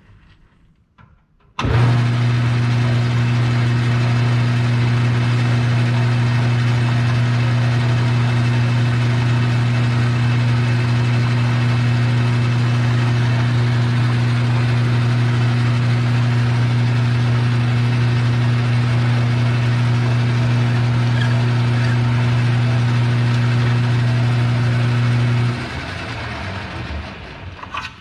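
An electric shop machine switches on about two seconds in and runs steadily with a strong low hum over a wide hiss. It is switched off near the end and winds down.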